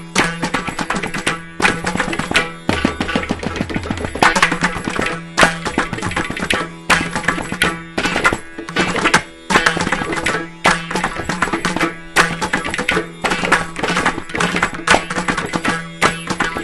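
Carnatic percussion ensemble of mridangams, kanjiras and morsing playing a fast, dense rhythm in mishra chapu tala, the seven-beat cycle, with a steady low drone underneath.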